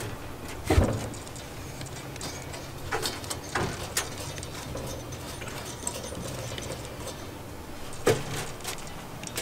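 Metal clunks and knocks from the gas grill's cabinet and propane tank as the tank valve is opened by hand: one loud clunk about a second in, a few lighter knocks in the middle and another clunk near the end, over a steady low hum.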